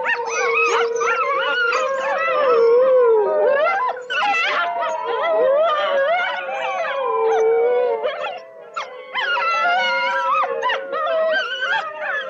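A pack of canines howling in chorus: one low howl held steady underneath while several higher voices glide up and down over it, with short yips mixed in. There is a brief lull about two-thirds of the way through.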